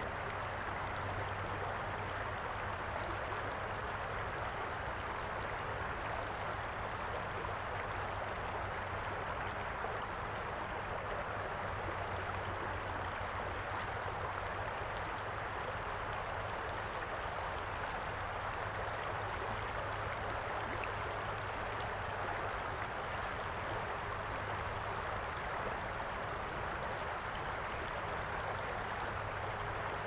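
Shallow river water flowing over a stony bed, a steady, even babble of running water with no change throughout.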